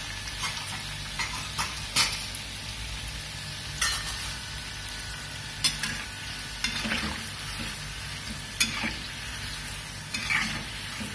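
Samosas deep-frying in hot oil in a metal kadhai, a steady sizzle, with a few sharp clicks as a perforated metal slotted spoon knocks against the pan while turning them.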